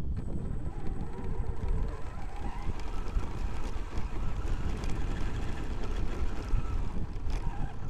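Onboard sound of a Traxxas X-Maxx electric RC monster truck driving over loose gravel: wind buffets the microphone and the tyres run over stones. The brushless motor's whine climbs in pitch about three seconds in as the truck picks up speed, then holds steady until near the end.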